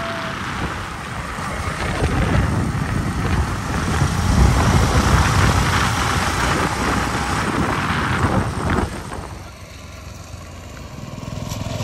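Small motorcycle engine running as it rides along, with wind buffeting the microphone. The sound drops away about nine seconds in and builds again near the end.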